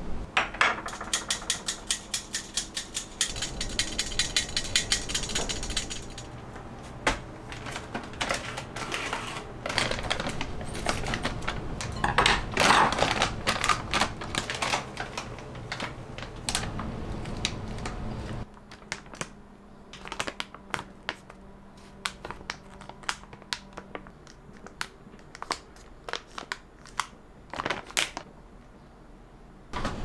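Kitchen handling sounds. First a spoon clicks rapidly against a glass jar, about five clicks a second, as flour is scooped out. Then a plastic bag of dried figs crinkles, and after it come scattered light taps and clicks.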